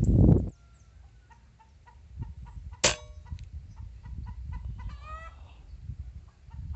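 A single sharp metallic clang with a brief ring about three seconds in, then a chicken clucking about two seconds later, over faint short chirps repeated a few times a second.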